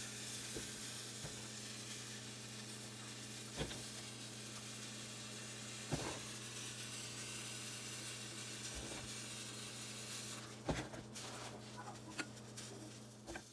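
Steady low hum and hiss, with a few soft knocks of a steel ladle against stainless-steel tumblers as idli batter is spooned in, more of them near the end.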